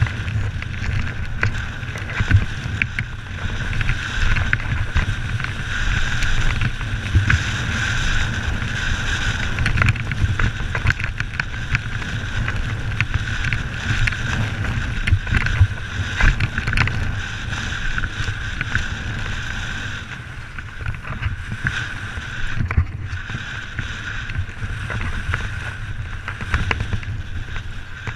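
Mountain bike running fast down a rocky gravel singletrack: tyres crunching over loose stones and the bike frame clattering over bumps, under a constant rush of wind buffeting the microphone, with a steady high buzz throughout.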